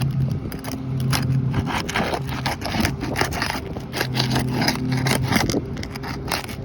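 Brittle asphalt roof shingles scraping and crackling as they are pried up and unsealed from the course below, in short irregular strokes. A steady low hum comes and goes underneath.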